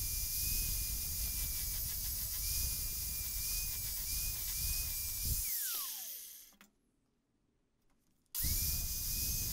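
Angle grinder running with a steady high whine as its disc grinds out a crack in the steel jaw of hoof nippers. A bit past halfway it is switched off and winds down, and after a short silence it starts up again near the end.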